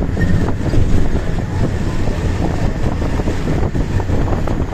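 Steady low rumble of a moving vehicle, with wind blowing across the microphone and a few faint knocks.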